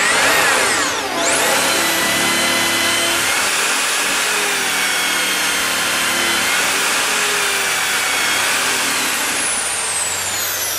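Power drill running a hollow screw extractor into an old bronze screw in a wooden boat plank, cutting round the screw and taking its head off. The motor whine speeds up, dips about a second in under load, then runs steadily before its pitch falls away near the end.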